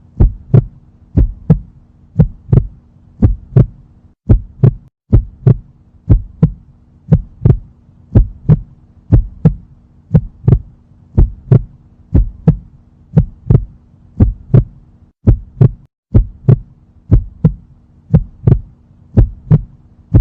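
Heartbeat, the paired lub-dub heart sounds repeating steadily about once a second, over a steady low hum.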